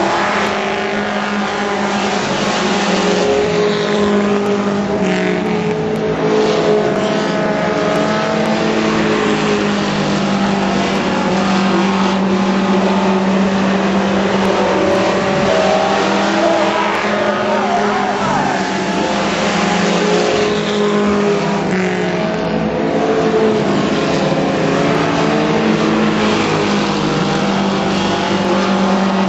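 Several mini stock race cars' four-cylinder engines running hard together on a dirt oval, a steady overlapping drone whose pitches rise and fall as the cars pass through the turns.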